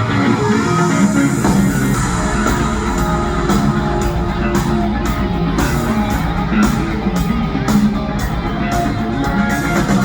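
Live band playing an instrumental break of a pop-rock song, with electric guitar to the fore. The bass and drums come in fuller about a second and a half in.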